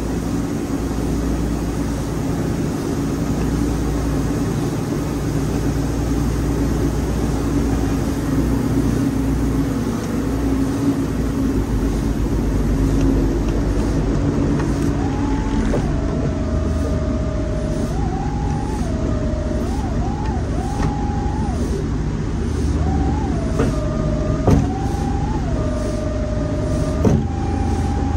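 Wood-Mizer LT40 sawmill's engine running steadily. About halfway through a machine whine joins in, stepping and gliding up and down in pitch again and again, with two sharp knocks near the end.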